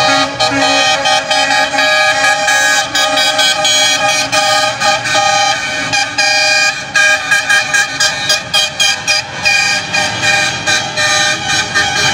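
Horns of passing trucks and cars honking, several sounding at once in long blasts, breaking into quick repeated toots in the second half, over the engines of the passing trucks.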